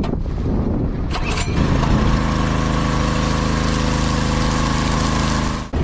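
Small petrol engine of a portable water pump starting up: rough and uneven at first, then catching and running at a steady speed from about a second and a half in, until it cuts off abruptly near the end.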